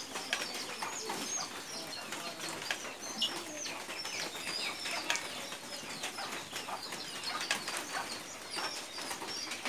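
Birds chirping throughout, with many short high calls overlapping, and scattered light clicks in between.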